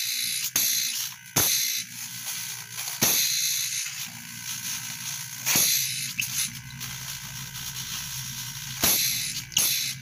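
Refrigerator compressor converted into a vacuum pump, running with a steady low hum while air hisses strongly at its open suction or discharge line. Several sharp clicks or knocks come through at intervals.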